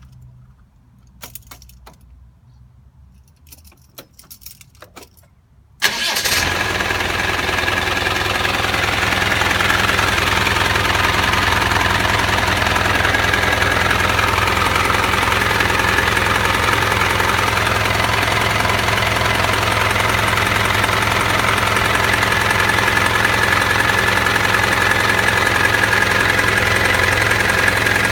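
Land Rover Defender 90 engine starting about six seconds in, after a few light clicks and a jangle, then idling steadily with a constant high whine over the engine note.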